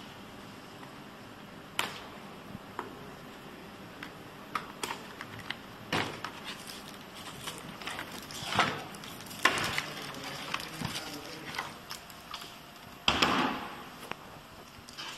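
Unpacking by hand: plastic wrap and cardboard rustling, with scattered knocks and clicks as parts are moved in and out of the box. Longer bouts of rustling come about two-thirds of the way through and again near the end.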